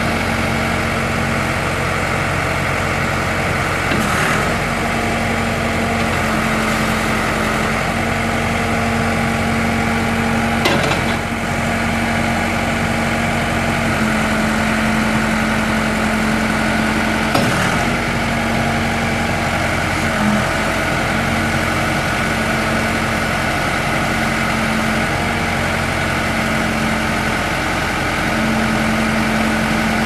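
Case 580L backhoe's four-cylinder diesel engine running steadily while the backhoe boom and bucket are worked, with a few brief knocks spread through.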